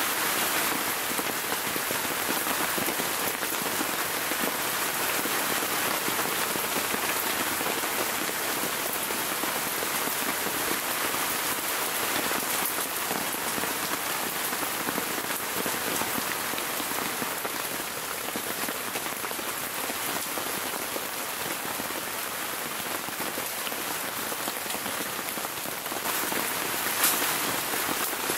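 Heavy rain falling steadily, with one short sharp tap about a second before the end.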